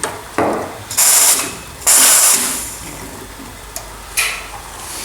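Clatter and hissing from work at an espresso machine: two loud, short hissing bursts about one and two seconds in, with a few clicks and knocks around them.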